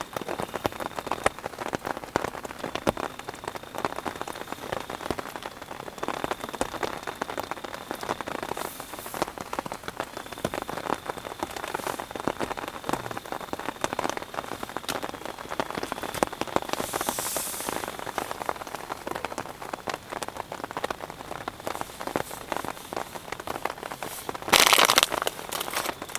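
Steady rain, many close drops striking a surface, with a faint steady high tone running under it. Near the end a louder rush of noise lasts about a second.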